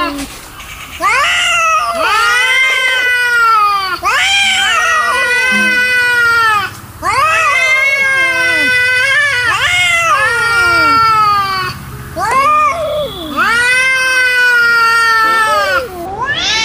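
Angry cats yowling (caterwauling) in a series of long, wavering, drawn-out calls with short breaks between them, the aggressive yowl of cats in a standoff.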